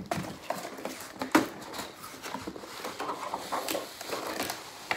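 A cardboard toy box and its plastic packaging being handled and turned over: scattered light taps, clicks and rustles, with a sharper knock about a second and a half in.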